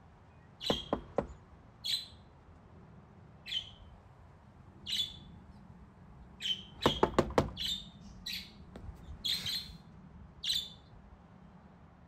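Knocking on a door: three knocks about a second in, then a quicker run of about five knocks later. Birds chirp in short, high calls every second or so throughout.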